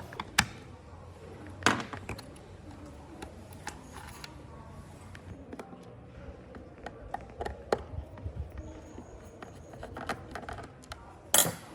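Irregular clicks, taps and knocks of small parts being handled and worked on by hand, with sharper knocks about half a second in, near two seconds and near the end.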